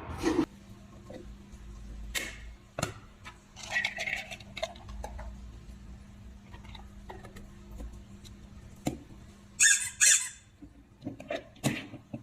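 Squeaky dog chew toy squeaking in short, sharp squeaks as it is pressed, the loudest pair about ten seconds in, with knocks and clicks of the toy being handled in between.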